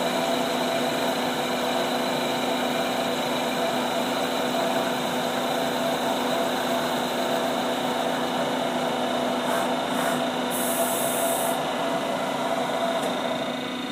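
Ikegai AX25N CNC lathe running with its spindle turning a metal workpiece while the tool takes a power-fed cut: a steady machining noise with a steady motor whine.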